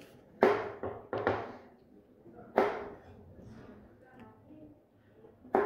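Chef's knife cutting carrot on a plastic cutting board: sharp knocks of the blade striking the board, three in the first second and a half, one about two and a half seconds in, and another near the end.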